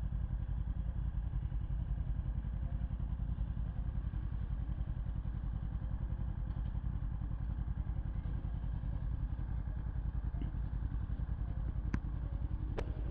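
Yamaha R1's inline-four engine idling steadily with a fast, even low pulse, no revving. Two sharp clicks near the end.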